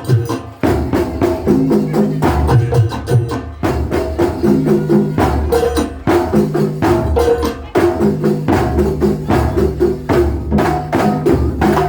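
Kuntulan music from Banyuwangi played live: rapid, dense percussion of hand drums in a driving repeated rhythm, with deep drum strokes and steady pitched tones underneath.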